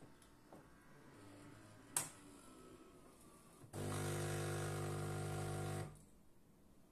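Philips 5400 bean-to-cup coffee machine brewing: a sharp click about two seconds in, then its water pump hums steadily for about two seconds and stops.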